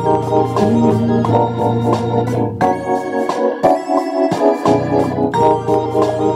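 Electric bass playing a simple groove of held low notes over organ chords and a beat of regular sharp hits; the low notes drop out for about a second and a half past the middle, then come back.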